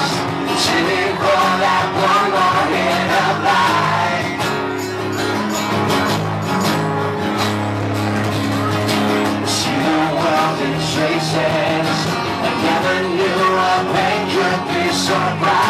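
Live band playing an acoustic rock song: strummed acoustic guitars and electric bass with a steady beat, and a voice singing.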